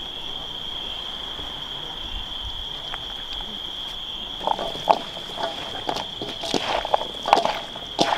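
A steady high-pitched insect drone, like crickets, runs throughout. From about four and a half seconds in, a utensil clinks and scrapes in a steel bowl as a boiled peanut chaat is stirred, in an irregular run of ringing knocks.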